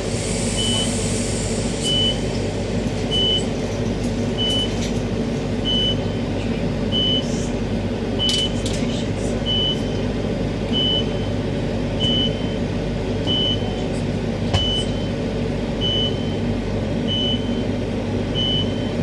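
Queensland Rail electric multiple unit standing at a platform, its on-board equipment giving a steady low electrical hum. A short high electronic beep repeats about every 1.3 seconds, and a brief hiss of air sounds in the first second.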